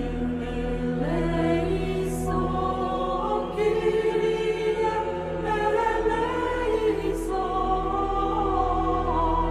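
A choir singing slow, held notes that move step by step, over a steady low drone.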